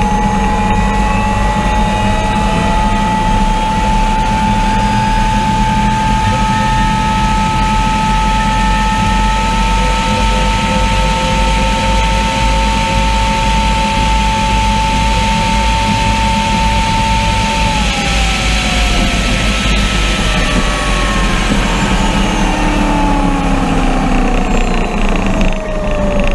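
Rolls-Royce Allison helicopter turbine of an MTT Y2K turbine motorcycle running at full power on a high-speed run: a steady high whine over heavy wind rush. From about two-thirds of the way in, the whine falls in pitch as the power comes off and the bike brakes.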